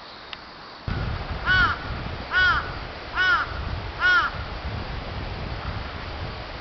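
A crow cawing four times, one call about every second, each call rising and falling in pitch, over a low rumble that starts about a second in.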